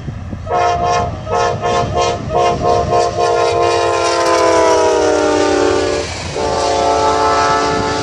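Amtrak GE P42DC passenger locomotive's multi-chime air horn played by the engineer: a rapid string of short blasts, then a long blast that drops in pitch as the locomotive passes, a brief break, and another long blast. Underneath, the passenger train's wheels rumble and clack on the rails.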